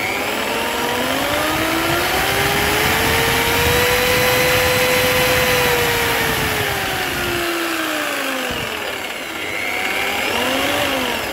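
Dextone electric jigsaw's motor running free, not cutting, its pitch rising with the speed over the first few seconds and then falling away, with a short rise and fall again near the end. This is a test run: the jigsaw, which would not switch on, now runs after a broken circuit-board trace was bridged with a wire.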